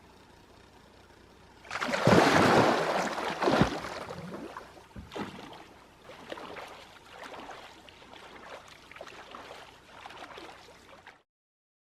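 Water splashing and sloshing, loudest for a couple of seconds starting about two seconds in, with a few knocks, then settling into irregular lighter splashes before cutting off suddenly near the end.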